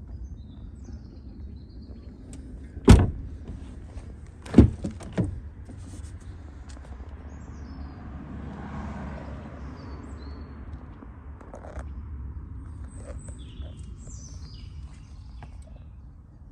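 Three sharp thuds, the first about three seconds in and two more close together about a second and a half later, typical of car doors being shut. A low steady rumble runs underneath, and birds chirp near the end.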